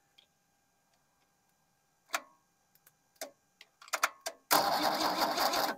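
A few sharp clicks and taps under the bonnet of a 1976 HX Holden ute, then, about four and a half seconds in, the starter motor suddenly cranks the engine with a loud, rhythmic churning that goes on through the end.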